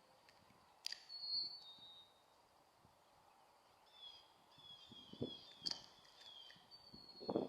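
Faint bird-like calling: a run of short, high chirps, each falling in pitch, about three a second, with a few soft knocks near the end.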